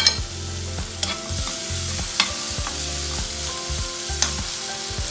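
Tomatoes stirred into frying onions in a non-stick kadai: a steady sizzle of frying, with a steel spoon scraping and clicking against the pan four or five times.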